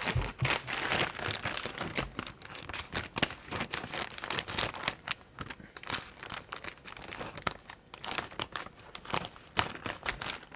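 Packaging being handled and crumpled: irregular crinkling and crackling with small tearing sounds, going on throughout.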